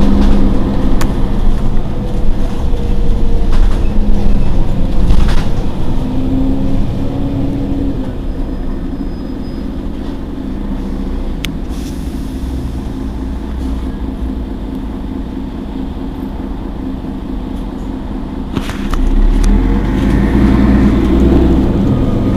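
Engine of a Mercedes-Benz Citaro G articulated city bus running while the bus stands still, heard from behind: a steady low rumble with a hum that eases off after the first few seconds and grows louder again about nineteen seconds in.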